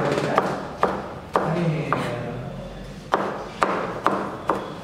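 Kitchen knife chopping green beans on a plastic cutting board: sharp knife strikes about two a second, with a pause of about a second near the middle.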